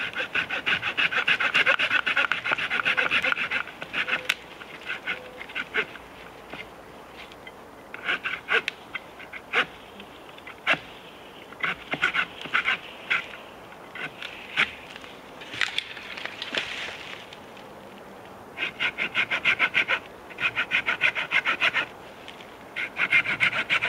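Hand saw cutting through the trunk of a small dead fir in quick back-and-forth strokes, in several bouts with short pauses between them.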